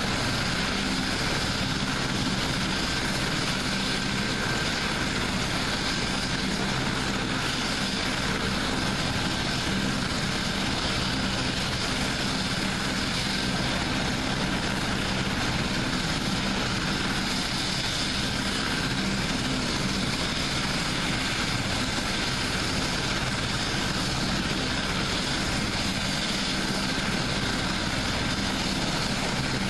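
AgustaWestland HH-101A Caesar, a three-engined military helicopter, running steadily on the ground with its main rotor turning. The noise stays constant throughout, with a faint unchanging whine.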